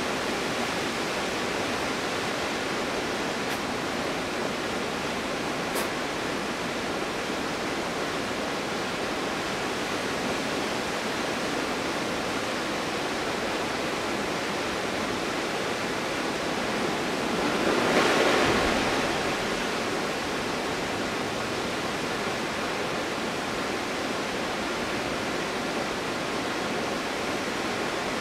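Waterfall in winter, a steady rush of falling water that swells briefly louder about two-thirds of the way through.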